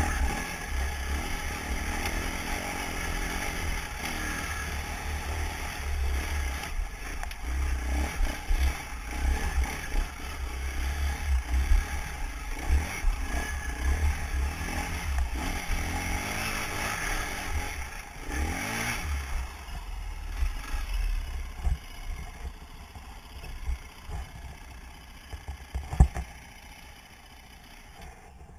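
Dirt bike engine running as the bike is ridden over a rough trail, with clattering and scraping from the bike bouncing over rocks and brush. The engine revs up about two-thirds of the way in, then the noise drops lower and quieter for the last several seconds, with one sharp knock near the end.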